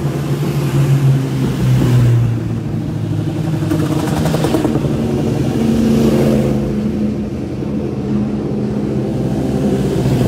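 Superbike racing motorcycles running at speed past the pit wall one after another, their high-revving engines swelling loudest as each goes by: about one and two seconds in, and again around six seconds.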